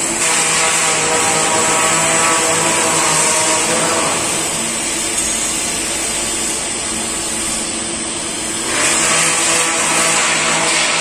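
TIG welding arc on a thin stainless-steel dimple jacket, a steady hiss over a constant machine hum. The hiss drops a little about four seconds in and comes back stronger near the end.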